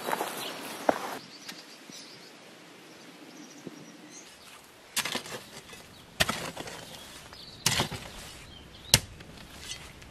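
A digging hoe chopping into hard soil: four sharp strikes in the second half, roughly one every second and a half.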